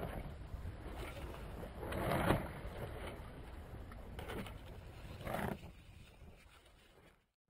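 Wind buffeting the microphone and water rushing past a small sailboat's hull in choppy seas, with two louder surges of wind and spray about two seconds and five seconds in. It fades out near the end.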